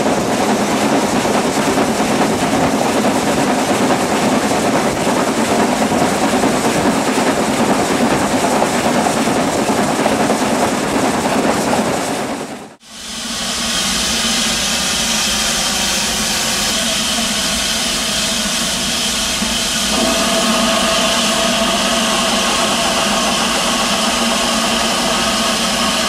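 Running noise of a train heard from inside a moving carriage, a steady rumble that cuts off abruptly about 13 seconds in. Then Southern Railway S15 4-6-0 No. 825 standing with steam hissing steadily from fittings on top of its boiler, a little louder near the end.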